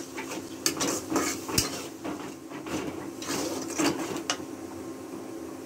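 Flat metal spatula scraping and knocking against a metal cooking pan while stirring fried onions and spice paste, in irregular strokes that stop a little after four seconds in.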